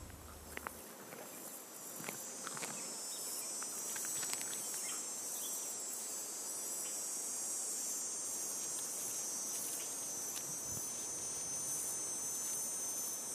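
Insects chirring in a steady high-pitched drone that sets in about a second in, with a few faint rustles and ticks.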